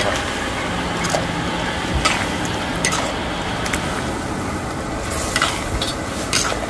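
Green curry being stirred in a pot on the fire: a steady bubbling hiss with a few sharp clinks of the utensil against the pot.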